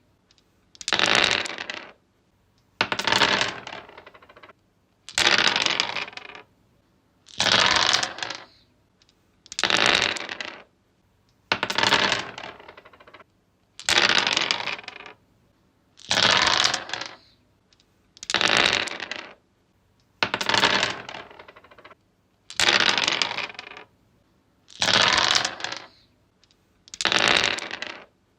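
Dice rolling and clattering across a wooden surface, one roll about every two seconds, each starting with a sharp rattle and dying away within about a second.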